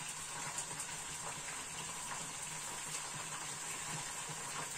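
Potatoes frying in a pan: a steady sizzling hiss with a few faint crackles.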